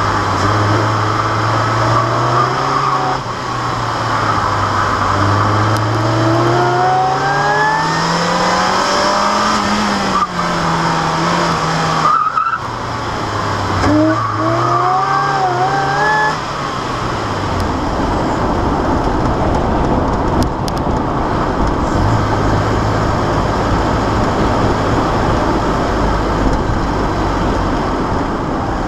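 Supercharged Mazda Miata's 1.8-litre four-cylinder with a Jackson Racing M45 supercharger, revving up and dropping back several times as the car is driven hard through an autocross course. A whine rises and falls with the engine. The second half is steadier and noisier, with little rise and fall.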